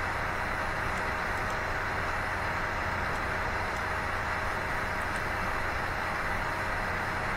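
Steady, even background noise with a faint hum, unchanging throughout, with a few faint ticks about a second in and again near five seconds.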